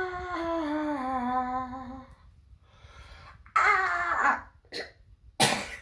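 A person's voice holding a vocal-exercise note that slides slowly down in pitch, then after a pause a shorter falling vocal sound and a sharp cough near the end. The singer judges the note still in chest voice rather than the upper register.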